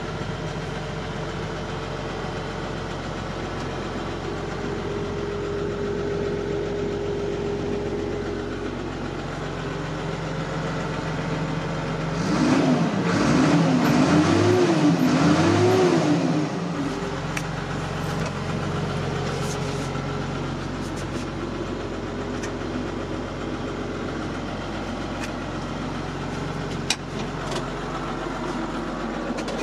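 New Holland TM120 tractor's diesel engine running steadily at idle, heard from inside the cab. About twelve seconds in, it grows louder for about four seconds while its pitch rises and falls three times, then settles back to idle. A single sharp click near the end.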